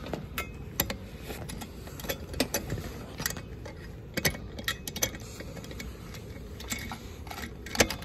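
Irregular metallic clicks and clinks as a hinged stainless-steel band clamp and fitting are handled and fastened on a tank manhole lid, with a low steady rumble underneath.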